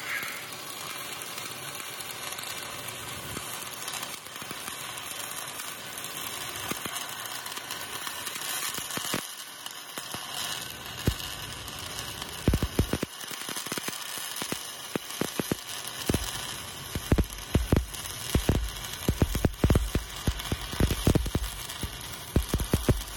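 Stick (SMAW) welding arc burning a cellulose-coated pipeline rod on steel pipe: a steady crackling hiss, breaking into frequent sharp, irregular pops and cracks over the second half.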